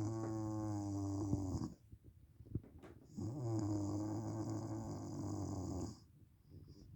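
A woman snoring in sleep: two long snores with a breathy hiss over them. The first ends a little under two seconds in, and the next runs from about three to six seconds in.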